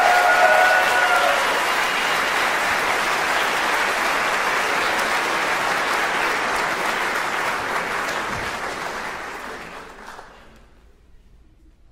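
Live audience applauding, dying away about ten seconds in.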